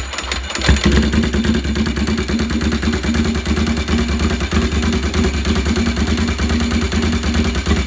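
1997 Ducati 748's 90-degree V-twin running with no exhaust fitted, fast-idling with a rapid, loud pulsing just after a cold start, with a brief louder burst just under a second in.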